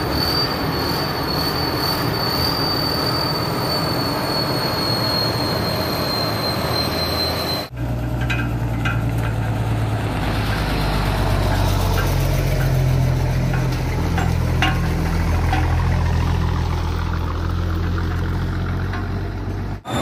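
Crawler combine harvester running with a high, steady whine that drifts slightly lower. After a cut about eight seconds in, a heavy diesel engine idles with a low, steady rumble and a few light clicks.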